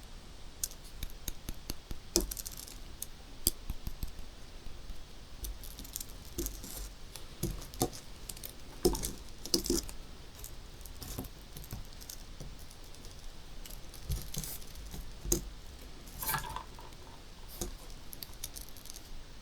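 Irregular series of soft pops and small sharp clicks from balloons being popped, a few a second, with a couple of louder pops near the middle.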